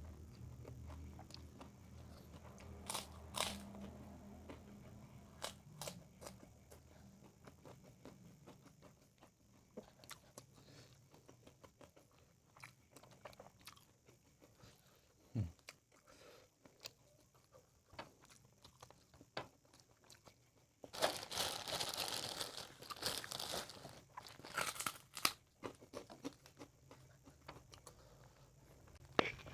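Close-up chewing and crunching of crispy fried fish, with scattered bites and clicks and a dense run of loud crunching for several seconds about three-quarters of the way in.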